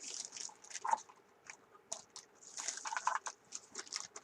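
Plastic parts bag crinkling and rustling in the hands in short, irregular bursts of crackle.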